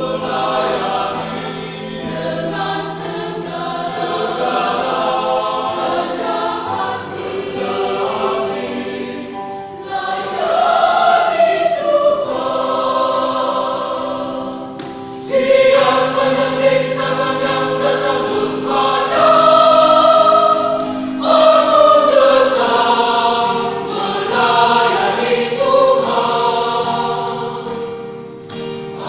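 Church choir singing in several voice parts at once, with held chords that swell louder about ten seconds in and again about fifteen seconds in.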